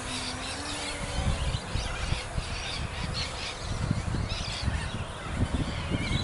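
A small FPV model aircraft's motor whine, distant and steady, fading out within the first second, after which gusty wind on the microphone rumbles, with scattered short bird-like chirps.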